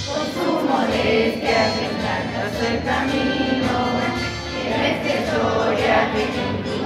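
School choir of teenage students singing a hymn together in Spanish, many voices sustaining the melody.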